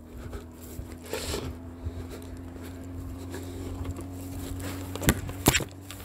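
Footsteps on a sandy roadside verge with rubbing and handling noise from a hand-held phone, over a steady low hum. Two sharp knocks about five seconds in are the loudest sounds.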